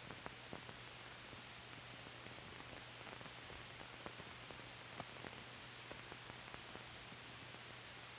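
Faint noise floor of an old film soundtrack: steady hiss with a low hum, and scattered clicks and pops about once or twice a second.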